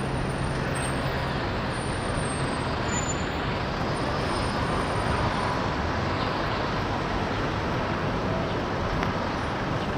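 City street traffic: the steady noise of cars and a bus in slow, jammed traffic. A nearby engine's low idling hum drops out about a second and a half in.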